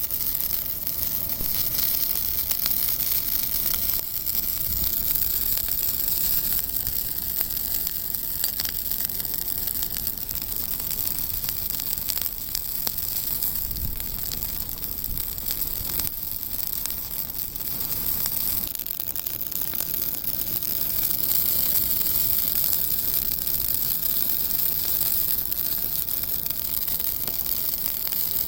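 Pioneer-style bonfire burning: a steady hiss with scattered crackles and pops from the burning wood.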